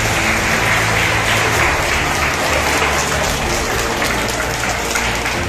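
Applause from a large audience of schoolchildren, many hands clapping at once.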